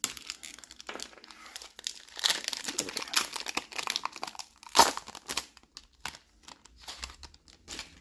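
Foil booster-pack wrapper crinkling and tearing as it is pulled open by hand, with a sharp crackle about five seconds in, the loudest moment; a few light clicks follow.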